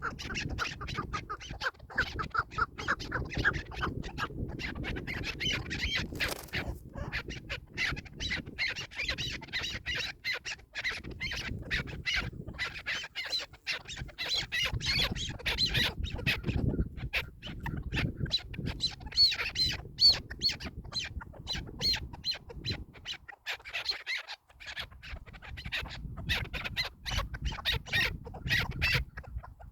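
Chukar partridges calling: long runs of rapid, repeated clucking notes.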